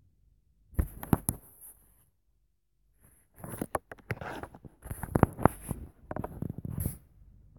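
Close-up handling noise: a few sharp clicks and a scratchy rustle about a second in, then, from about three and a half seconds in, a run of rustles, scrapes and taps with several sharp clicks.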